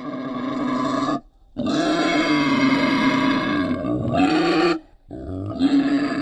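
Wild pig giving three long, drawn-out calls with short breaks between them. The middle call lasts about three seconds.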